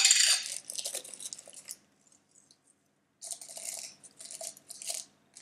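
Salt grains rustling and crunching as fingers pinch them from a tub and sprinkle them into a bowl. It comes in two bursts: one in the first couple of seconds and another from about three seconds in.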